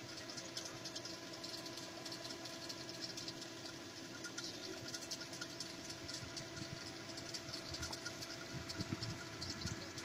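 Diesel engine of a truck-mounted concrete boom pump running steadily while it pumps concrete. A few low thumps come near the end.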